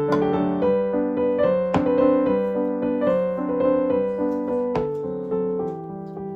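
Background music: a piano or electric piano playing a melody over held chords.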